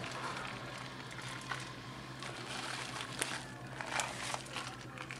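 Faint rustle of shredded Parmesan being sprinkled by hand onto potato wedges in a metal baking pan, with a few light ticks, over a low steady hum.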